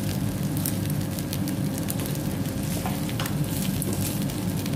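Food sizzling on a tabletop barbecue grill, with scattered crackles over a steady low hum from the cooker.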